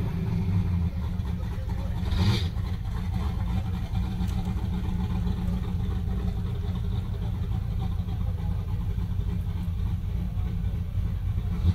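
Car engines idling in a low, steady rumble, with a brief louder noise about two seconds in.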